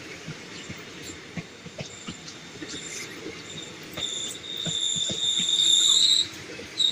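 Indian Railways passenger coaches rolling past, with wheels clicking over the rail joints. About four seconds in, a high-pitched steel wheel squeal sets in and grows louder, stops just after six seconds, then briefly returns near the end.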